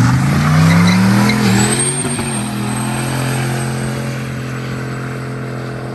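Turbocharged Chevrolet Silverado with an 8.1 big-block V8 doing a burnout: the engine revs up over the first second and a half and is held steady at high revs while the rear tyres spin and smoke, with a thin high whistle over it.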